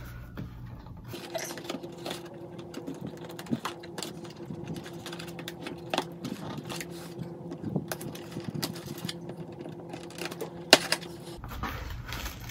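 Scissors snipping through packing tape on a cardboard mailing box: a run of irregular snips and clicks, with a sharper snap near the end, over a faint steady hum.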